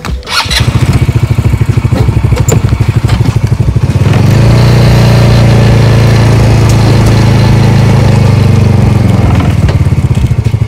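Polaris side-by-side UTV engine idling with a fast even pulse, taken up to a higher, steadier speed at about four seconds and settling back to idle near the end.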